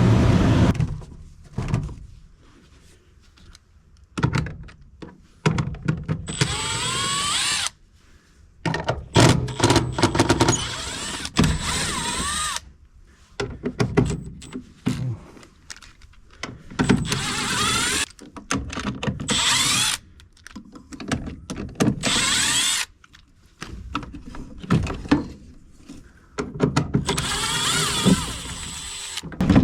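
Cordless drill/driver running in repeated short bursts, its whine rising and falling in pitch as it spins, with knocks of handling between.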